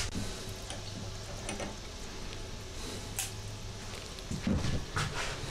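Scattered light knocks and clicks of things being picked up and handled on a workbench, over a steady low electrical hum.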